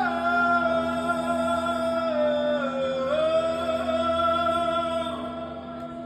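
Live band music between sung lines: a sustained melody line steps down and back up over a steady held low note, easing off near the end.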